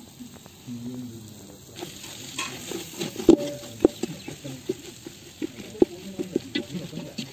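Onion-tomato masala with spice powders frying and sizzling in a metal pot while a wooden spatula stirs and scrapes it, knocking against the pot many times, once sharply about three seconds in.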